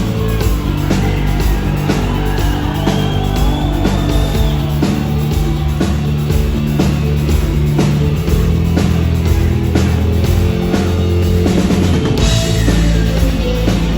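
Rock band playing at a steady loud level, with a drum kit keeping a regular beat under bass and electric guitar.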